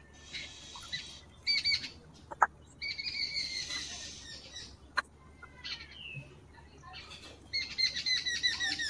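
Small birds chirping in quick repeated bursts, loudest near the end. Light splashing of water as chillies are rinsed by hand in a small clay bowl, with a few small clicks.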